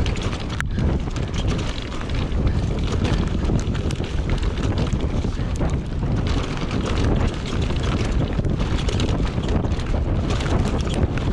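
Wind rushing over the microphone of a camera on a downhill mountain bike ridden fast over dirt, a steady rush with many short clicks and rattles from the bike running through it.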